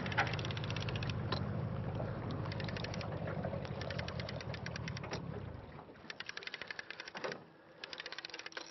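Boat motor running low and steady, fading out about six seconds in. Over it comes a fast, even ticking from a fishing reel's line-out clicker as the live bait takes line off the reel.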